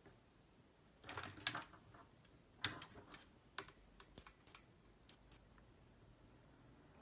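Faint, irregular clicks and taps, about a dozen spread over a few seconds.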